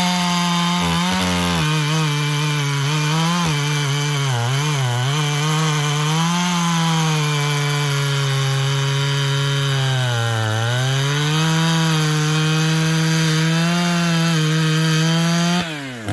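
Gas chainsaw fitted with an Oregon M72X3 micro-chisel chain cutting through pin oak at full throttle, the engine pitch sagging under load a few times. Near the end the throttle is released and the engine falls back.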